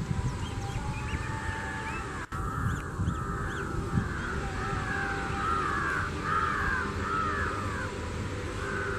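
A bird calling over and over in short, harsh, arching calls, about two a second from about a second in, over a steady low rumble from the train.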